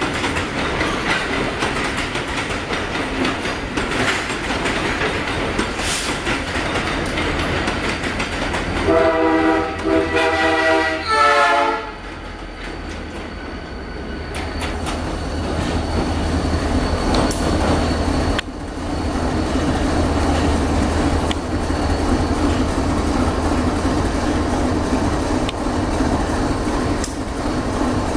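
Freight train wagons rolling past, then a locomotive's air horn sounding several tones at once for about three seconds, its pitch dropping just as it ends. After the horn a diesel locomotive's engine runs with a steady low drone while the train keeps moving.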